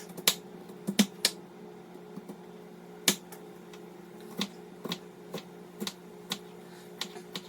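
Knife chopping onions on a cutting board: irregular sharp knocks, about one or two a second, some in quick pairs, over a steady low hum.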